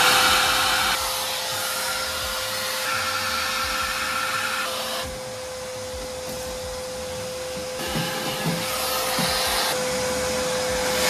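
Vacuum cleaner running with a steady high whine over a rushing hiss of suction. The hiss changes several times as the nozzle is worked over the floor panels, and a few soft knocks come near the end.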